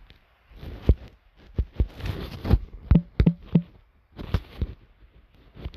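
Handling noise from a smartphone in use: a string of sharp taps and knocks with rustling between them.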